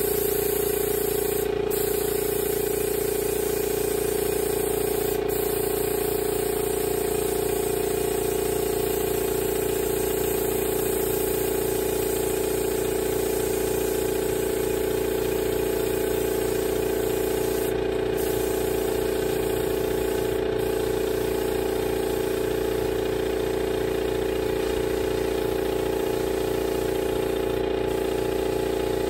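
Air compressor running steadily, a constant motor hum over a hiss, supplying air to a paint spray gun.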